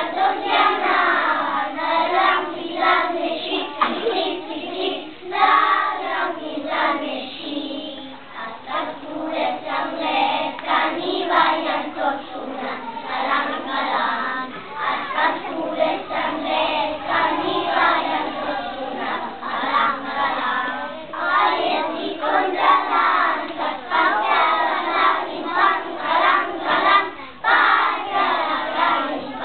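A choir of young children singing together, a song with many short phrases that goes on without a break.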